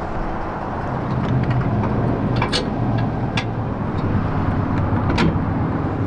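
Pickup truck driving, a steady rumble of engine and road noise heard from inside the cab, with a few sharp clicks about halfway through and near the end.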